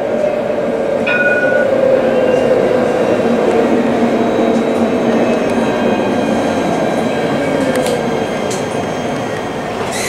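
Alstom Citadis tram running along the track, heard from inside the cab: a steady rumble of the motors and wheels on the rails, with a whine that falls slowly in pitch. A short electronic beep sounds about a second in.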